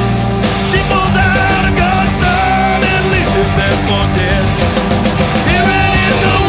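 Hard rock band recording playing loud, with steady drum hits under a lead line that bends up and down in pitch.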